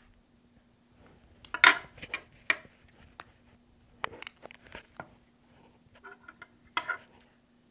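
Surgical instruments and suture being handled on a practice model: irregular light clicks and brief rustles, the loudest about a second and a half in, with more around four to five seconds and again near the end.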